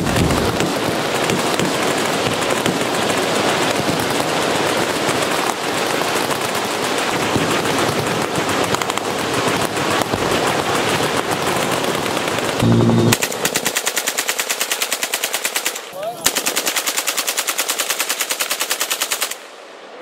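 Massed machine-gun fire from many guns on a firing line, a continuous overlapping din with a heavy boom of an exploding target near the middle. It then gives way to a single full-auto gun fired close by in two long, evenly paced bursts with a short pause between them.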